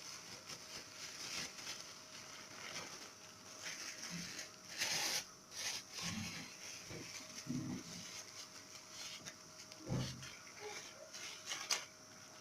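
Thin plastic bags rustling and crinkling as they are filled with lemon syrup and tied, with a louder rustle about five seconds in and a couple of sharp knocks near the end.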